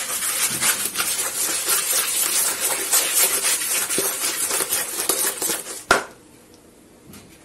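Silicone spatula beating eggs and sugar in a plastic mixing bowl: fast, continuous scraping and slapping strokes. It stops with one sharp knock about six seconds in, and what follows is much quieter.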